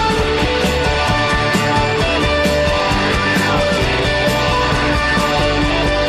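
Instrumental rock music with guitar and a steady beat.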